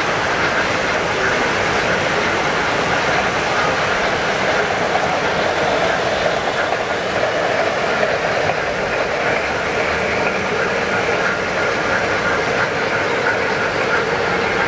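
O-scale model trains running past on the layout: a steady running noise from their wheels and motors on the track.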